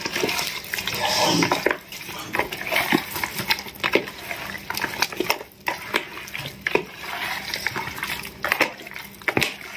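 A hand mixing raw mango pieces coated in oil and chilli powder in a plastic tub, making avakaya pickle: wet squelching and rustling with many irregular clicks and knocks as pieces hit the tub.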